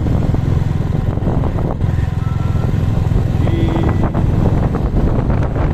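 Steady rumble of a vehicle engine on the move, with wind buffeting the microphone.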